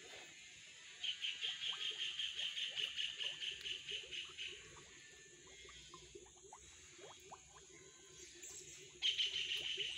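High-pitched insect trill, pulsing fast and evenly, in two bouts: one from about a second in for some three seconds, and another starting near the end.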